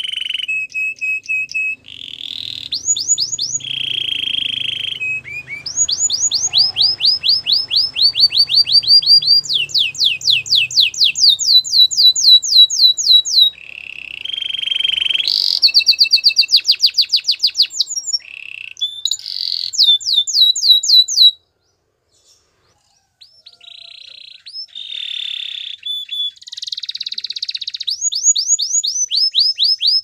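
White canary singing: phrases of fast trills of repeated sweeping notes, broken by held whistled tones. The song stops for a moment a little past two-thirds of the way through, then starts again.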